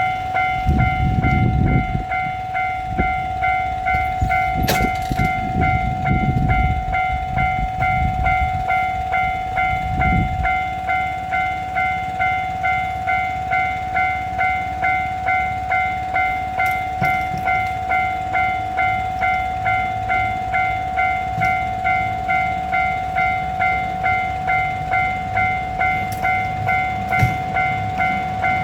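Japanese level-crossing electronic warning bell ringing steadily at about two strikes a second. For the first ten seconds or so a diesel railcar train passes with a low rumble and knocks from its wheels. The bell keeps ringing after the train has gone.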